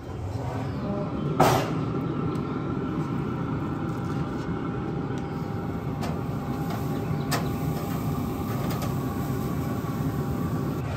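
Pit Boss Titan pellet grill open, its fan running in a steady rumble with a faint whine. One sharp metal clank comes about a second and a half in as the lid swings open, and a few light clinks follow from the rack and grates as the ribs go on.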